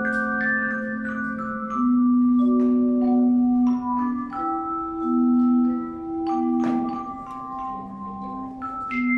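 Tone chime ensemble playing a melody: handheld aluminium tone chimes struck one after another, each note ringing on in a long steady tone, layered into chords over held low notes.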